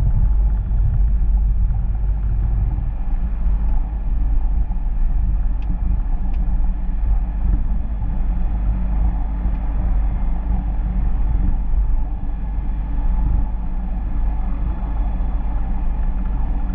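Piston engine and propeller of a Robin light aircraft running steadily at low power as it rolls along the ground after landing, heard inside the cockpit as a steady low rumble.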